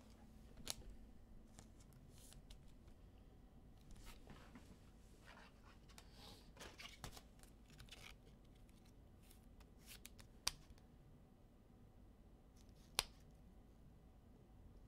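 Near silence with faint rustling of trading cards and packaging being handled, and a few sharp clicks: one about a second in and two near the end.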